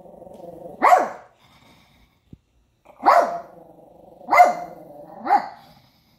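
Small dog barking four times in sharp single barks, with a low growl held between the barks.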